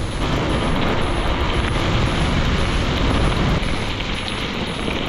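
Steady rush of wind on the microphone mixed with bicycle tyres rolling over a wet gravel road.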